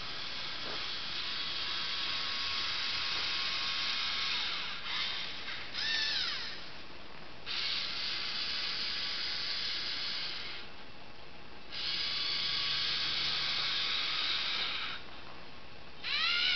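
Lego Mindstorms NXT servo motors whirring with a gear whine as the hanging robot moves itself along a bar. There are three runs of about three seconds each with short pauses between them, and two brief whirs that rise and fall in pitch, one after the first run and one near the end.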